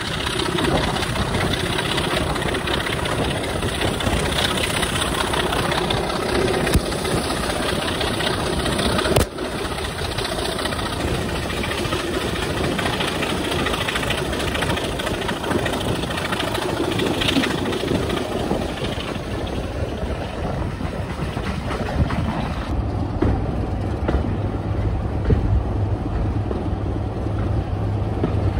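Moving train heard from an open coach window: a steady rush of wind and wheel noise, with the Class 25 diesel locomotive's Sulzer six-cylinder engine running at the head of the train and one sharp thump about nine seconds in. Near the end the wind rush drops away as the train slows, leaving a steady low engine hum.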